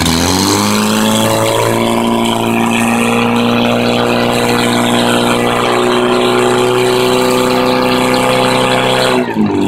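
Portable fire pump's engine running at high, steady revs, pumping water into the attack hose lines. Its pitch dips and climbs back just after the start, and falls away near the end as the engine is throttled back.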